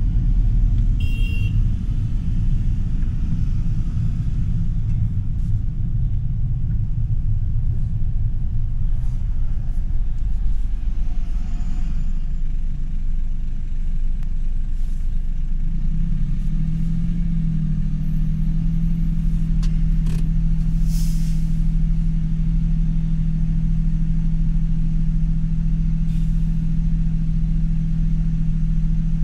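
Stock Toyota GR Yaris, its 1.6-litre turbocharged three-cylinder G16E-GTS engine heard with road noise in city driving: a low rumble that, a little past halfway, settles into a steady, even hum.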